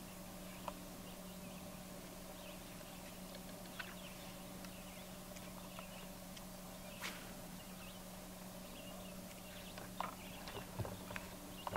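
Steady low hum with scattered faint bird chirps, and a run of small sharp clicks about ten seconds in from the handling of a spinning reel.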